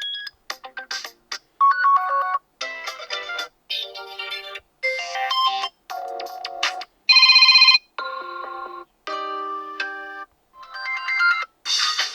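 The HAFURY G20 smartphone's default system tones previewed one after another: about a dozen short snippets of different melodic ringtones and alert tones, each cut off after under a second, roughly one a second.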